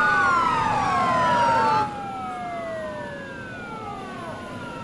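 Several police car sirens wailing at once, their overlapping tones sliding slowly down in pitch. The sirens drop noticeably in level about two seconds in, then carry on with quicker up-and-down wails.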